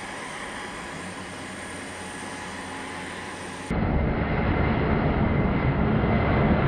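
Aircraft noise in two spliced parts. First comes a steady, fainter hum with a thin high tone. Then, at a sudden cut nearly four seconds in, the much louder, steady deep rumble of a C-5 Galaxy's turbofan engines as the big transport rolls along the runway.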